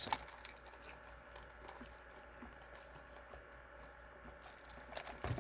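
Faint chewing with small wet mouth clicks as a sauced chicken nugget is eaten, with a few louder clicks near the end.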